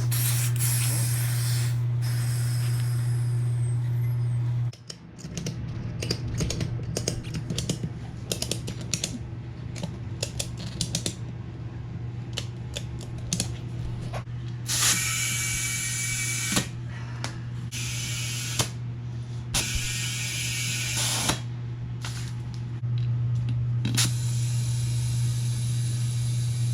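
Clicking and clanking of hand-tool work with two hissing spray bursts, each about a second and a half long, over a steady low hum.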